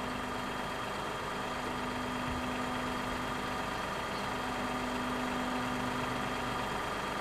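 Diesel engines of MAN tow trucks idling steadily.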